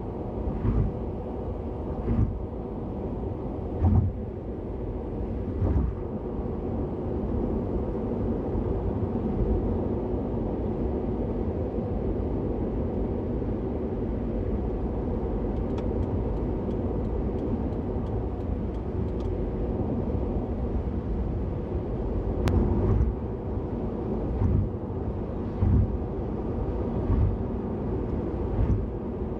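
Car cabin noise at expressway speed: a steady low rumble of engine and tyres on the road. Short low thumps come every second or two in the first few seconds and again over the last several seconds, as the tyres cross the joints of the elevated expressway. There is one sharp click about two-thirds of the way through.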